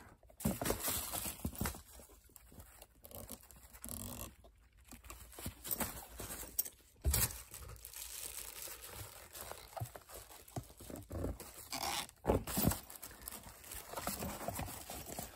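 Quiet scratchy rustling and light clicks of a textured sensory pencil case being handled and opened.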